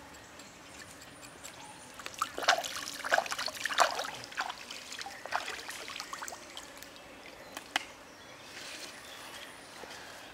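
Water splashing as a raw pig's leg is swished and rinsed in a shallow stream, in a run of splashes from about two seconds in, with the stream trickling steadily underneath.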